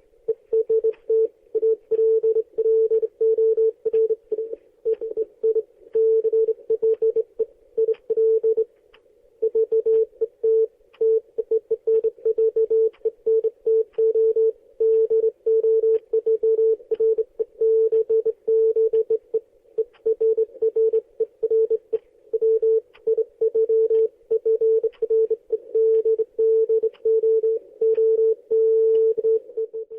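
Morse code sent as a single steady beep tone, keyed on and off in rapid dots and dashes, with a brief pause a little under a third of the way through.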